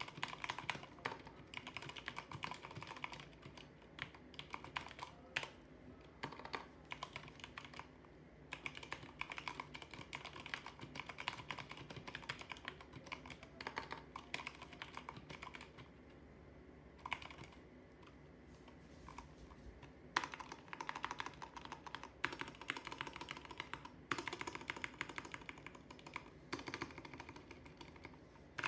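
Fast typing on a Corsair K65 mini mechanical keyboard with Silver linear switches: a dense patter of key clicks in runs, easing off briefly a few times between bursts.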